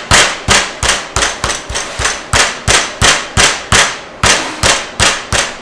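Meat mallet pounding a chicken breast through plastic wrap on a plastic cutting board, in steady blows about three a second, to flatten the breast to an even thickness.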